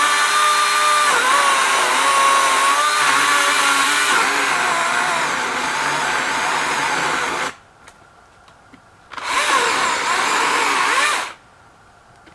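Husqvarna 120i battery-powered chainsaw cutting into a tree trunk, its electric motor whine dipping in pitch as the chain bites into the wood. It stops about seven and a half seconds in, runs again for about two seconds, and stops.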